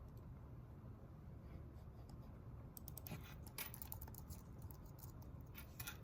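Typing on a computer keyboard: quick runs of soft keystroke clicks, one cluster about three to four seconds in and another near the end, over a faint steady low room hum.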